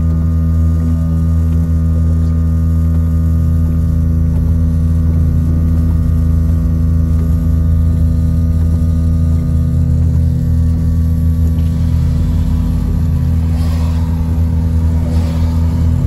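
Air compressor of a vehicle's train-horn kit running on with a steady hum inside the car, without shutting off: it is still trying to fill its tank. Near the end there are a couple of faint windshield wiper swipes.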